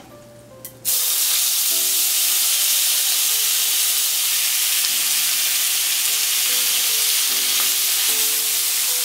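Boiled taro stem pieces going into hot mustard oil in a pan and sizzling. The sizzle starts suddenly about a second in and then holds loud and steady.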